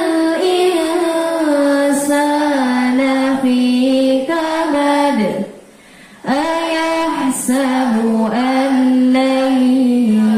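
Young voices reciting Qur'an verses aloud in a slow, melodic chant, as in memorisation review. There is a short pause about five and a half seconds in, then the recitation picks up again.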